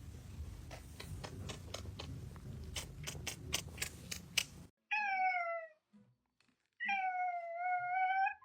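A domestic cat meows twice: a short falling meow, then a long drawn-out meow. Before them comes a run of sharp clicks over a steady background noise.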